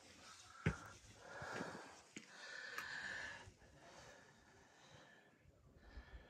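A person breathing hard while climbing stairs, with two long, soft breaths in the first half and a single knock of a footstep about two-thirds of a second in.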